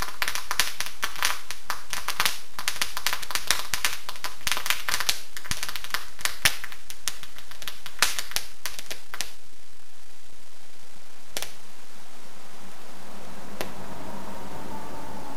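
Firework crackling: rapid sharp pops and crackles coming from the burning wreck of a toy stagecoach. The crackling thins out and stops after about nine seconds, followed by two single sharp cracks.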